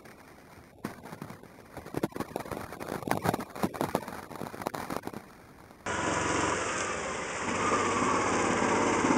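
Irregular clicking and crackling for about six seconds. Then, after an abrupt cut, a small engine runs steadily and grows louder toward the end.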